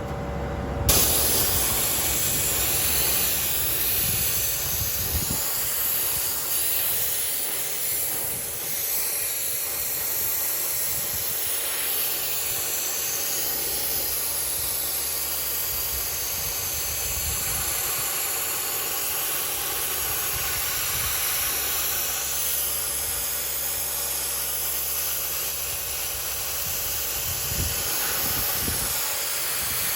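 Portable sandblaster firing glass blasting media at a transmission case to strip paint: a steady hiss of air and grit that starts about a second in.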